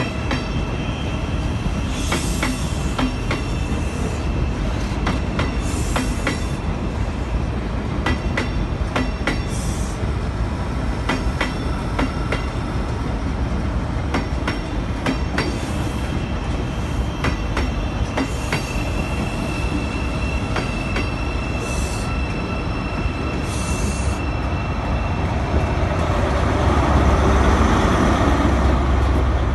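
InterCity 125 Mark 3 coaches rolling slowly past on departure, the wheels clicking over rail joints, with a held squeal and brief higher squeals every few seconds. Near the end the rear Class 43 diesel power car passes and the engine rumble grows louder.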